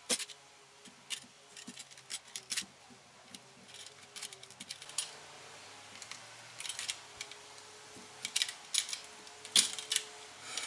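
A rubber hand-expander ring being cut lengthwise into two halves: a run of irregular sharp snips and clicks.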